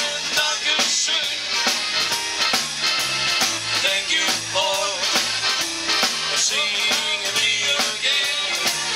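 Live band music: accordion, electric bass and electric guitar playing over a drum kit's steady beat.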